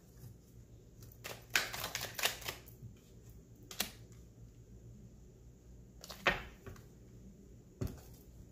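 A deck of tarot cards being shuffled and handled by hand: scattered sharp snaps of the cards, several close together about two seconds in, then single ones every couple of seconds.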